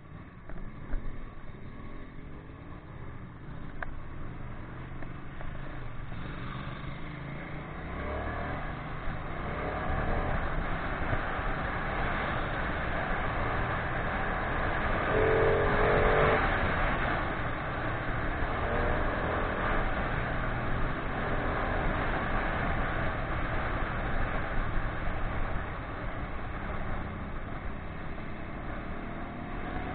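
Ducati 959 Panigale's V-twin engine pulling the bike up to speed, with wind rushing over the microphone and getting louder as the bike gathers pace; it is loudest about sixteen seconds in. A short knock about a second in.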